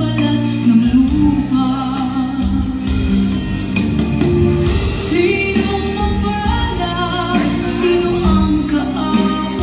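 A song playing, with a singing voice over instrumental backing.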